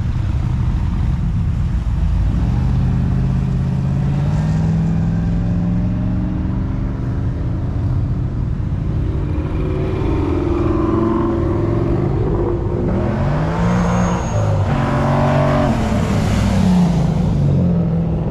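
Cars accelerating away and passing by, their engines running and rising in pitch. From about two-thirds of the way in, one car revs hard, its pitch climbing and dropping back several times as it shifts up; this is the loudest part.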